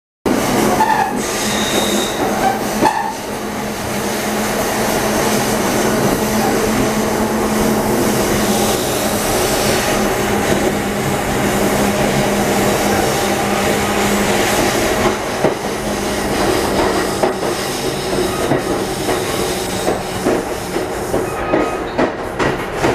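Ride noise of a moving passenger train heard from on board: a steady rumble of wheels on rail with a low hum that fades out about two-thirds through. Short clicks of wheels over rail joints grow more frequent near the end.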